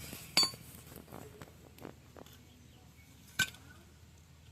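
Metal tools and parts clinking during tractor half-shaft (axle) disassembly. Two sharp ringing metallic clinks, one just after the start and one about three seconds later, with fainter taps in between.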